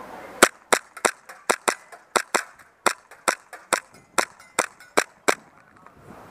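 Gas blowback airsoft pistol fired rapidly: about fifteen sharp cracks at roughly three a second, stopping after about five seconds.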